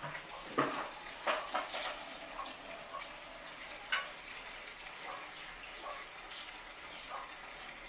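Close-up mouth sounds of eating spaghetti: wet slurping and chewing in a string of short bursts, loudest in the first two seconds.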